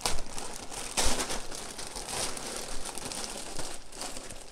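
Clear plastic poly bag crinkling and rustling as it is handled around a packed duffel bag, with loudest rustles at the start and about a second in.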